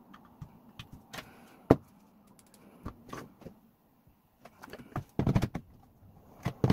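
Small, scattered clicks and taps of a precision screwdriver fastening the plastic case screws of a DeWalt 18V battery pack. About five seconds in, a louder burst of plastic clatter and clicks as the battery pack is slid onto a DeWalt DCB115 charger.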